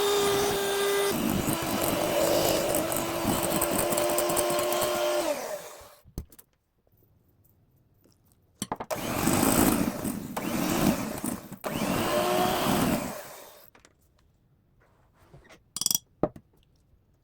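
Electric kitchen mixer motor running steadily, dropping in pitch about a second in, then winding down and stopping. After a pause it runs again for about four seconds with a brief break, and a couple of clicks follow near the end.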